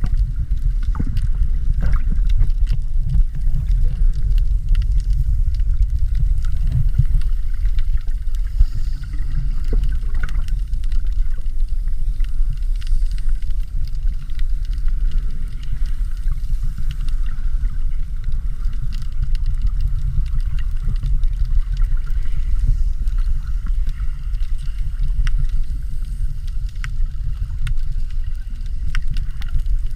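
Underwater sound: a steady, muffled low rumble of moving water, with faint scattered clicks.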